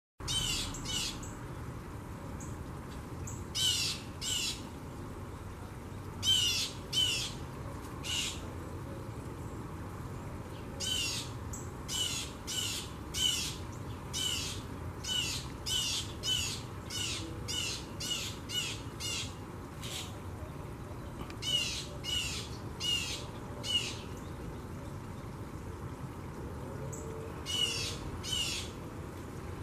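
A bird giving short, harsh calls over and over, in bouts of several quick calls separated by pauses of a second or two.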